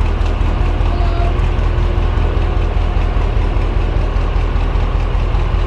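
Heavy diesel engine running steadily at idle, a low, rapid, even throb.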